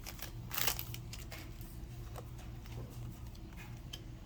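Trading cards and a foil booster-pack wrapper being handled: faint rustles and light clicks, with a brief louder rustle about half a second in, over a low steady hum.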